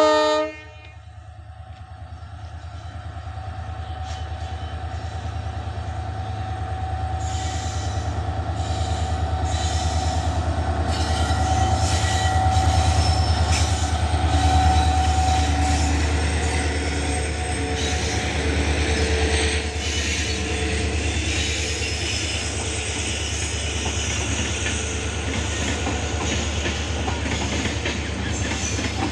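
An Indian Railways express hauled by two diesel locomotives, with a WDG4D at the head, gives a short horn blast at the very start. It then approaches and passes close by. The diesel engines' low drone builds to its loudest about halfway, with a steady whine over it. After that the coaches' wheels clatter over the rail joints as the train runs by.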